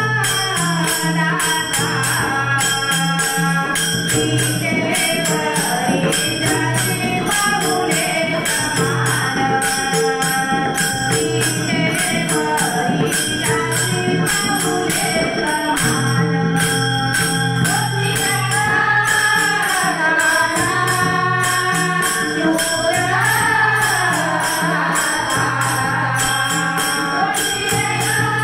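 Marathi Warkari bhajan: voices singing a devotional abhang over a steady held drone, with hand cymbals (tal) jingling in a fast, even rhythm.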